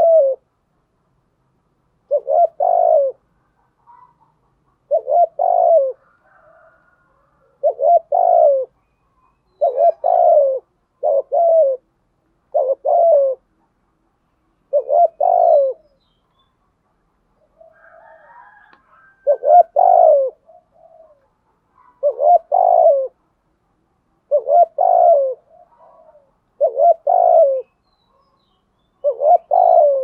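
Spotted dove cooing: a short phrase of low coos repeated about every two seconds.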